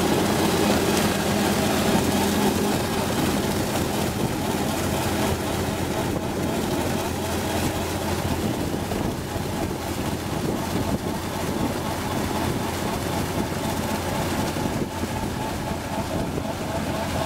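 Perkins 5.8-litre six-cylinder diesel engine running steadily under load, with the rotary ditcher head churning and throwing wet peat as it cuts a drain.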